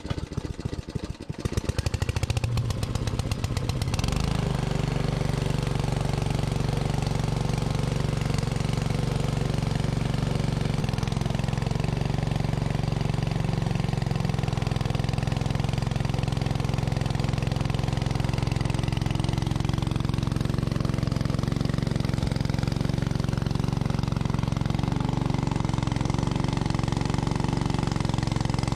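Small petrol-engine water pump starting with its spark plug freshly cleaned. It fires raggedly for the first few seconds, then about four seconds in settles into a steady run. The owner suspects the plug fouls by picking up too much oil.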